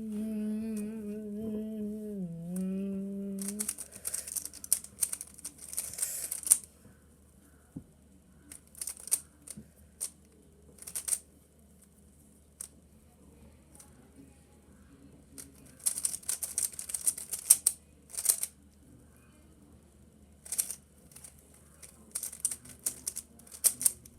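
A person humming one held note for the first few seconds, dipping briefly in pitch about two seconds in. Then spurts of rapid clicking and rattling from a Rubik's Cube's plastic layers being turned, with quiet pauses between the spurts.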